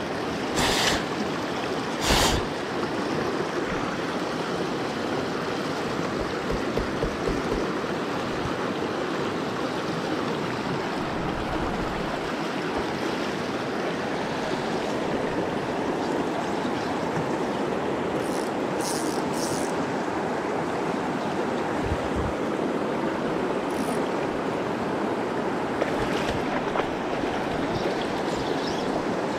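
Steady rushing of a fast-flowing river run over rocks, with a few brief knocks and clicks near the start and again later on.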